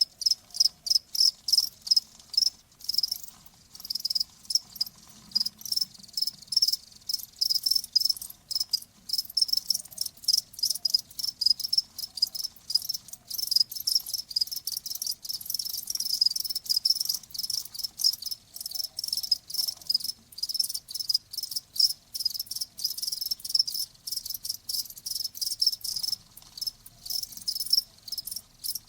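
Crickets chirping: a fast, regular train of high-pitched chirps, several per second, continuing steadily.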